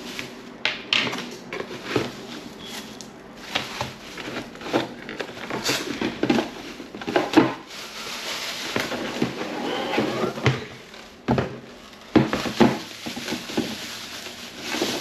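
Clear plastic storage bins and their lids being unpacked and handled: a run of light plastic knocks and clicks with rustling in between.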